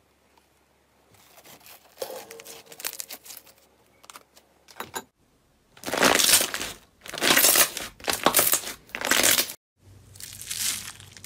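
Hands playing with slime: faint crackling as orange slime is pressed through a wire mesh, then four loud, crackly squishes about a second apart as clear, bubble-filled slime is squeezed. Near the end comes softer crunching from a hand pressed into a bowl of small foam beads.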